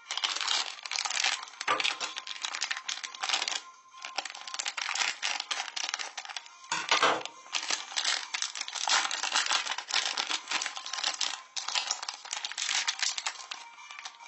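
Crinkly wrapper being torn and unwrapped by hand: a dense run of crackling with short pauses about 4 and 11 seconds in.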